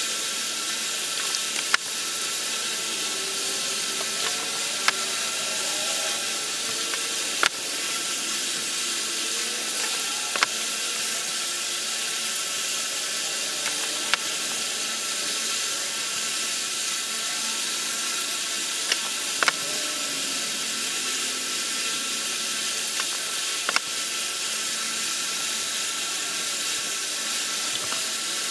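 Steady hiss with faint rubbing and a sharp click or knock every few seconds, at irregular spacing. This is gloved hands wiping an engine block's bedplate flange and bearing saddles with coffee filters and denatured alcohol, and handling the alcohol can.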